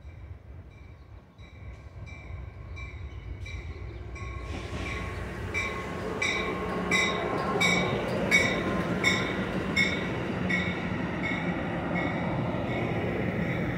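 A bilevel push-pull passenger train, cab car leading, comes into the station and passes. Its rumble and wheel noise build from about four seconds in. A bell rings steadily about every two-thirds of a second, faint at first and louder as the train draws near.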